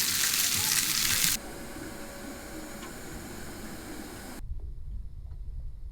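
Steady hiss of rushing water that drops abruptly to a quieter hiss about a second and a half in, then gives way to a low rumble about four and a half seconds in.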